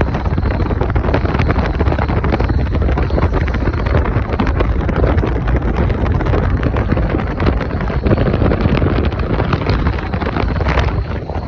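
2004 Toyota Tacoma underway at speed: loud, steady driving noise with wind on the microphone.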